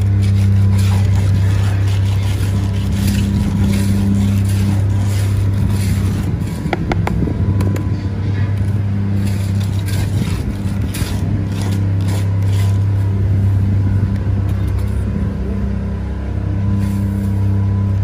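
An engine or motor running steadily with a low hum, with short scraping strokes of a steel trowel spreading wet concrete over a wooden mould.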